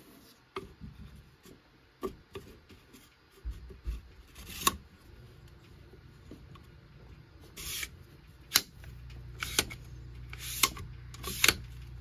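Plastic adjustable carbine buttstock being handled and slid on its metal extension tube: a series of sharp clicks as the latch snaps into place, with a couple of short scrapes of plastic on metal. A low hum sits underneath in the latter part.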